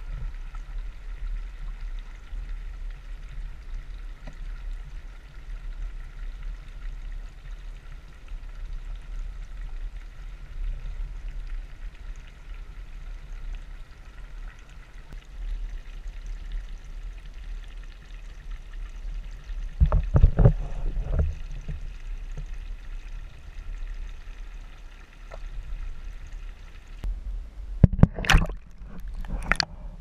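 Muffled underwater rumble picked up by a submerged camera, with loud sloshing knocks about twenty seconds in and again near the end.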